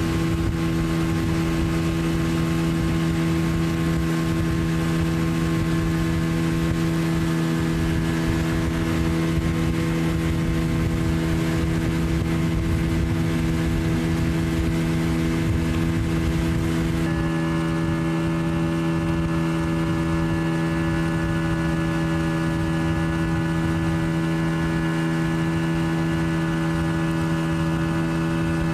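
Motorboat engine running steadily while under way, a constant drone over a low rush of wind and water. The drone's higher tones shift once, about two-thirds of the way through.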